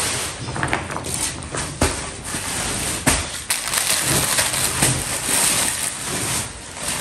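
Plastic mailer bags and packaging rustling and crinkling as clothes are packed and bagged, with several sharp crackles.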